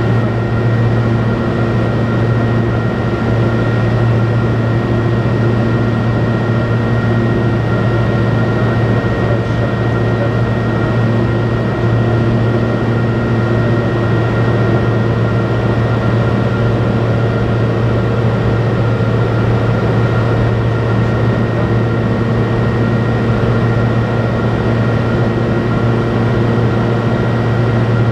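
Robin DR400 light aircraft's piston engine and propeller droning steadily at climb power, heard from inside the cockpit. The pitch and level hold even throughout.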